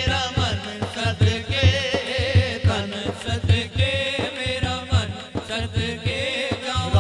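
A naat sung by a man through a PA system: one long wavering, ornamented vocal line with vibrato, over a steady low drumbeat.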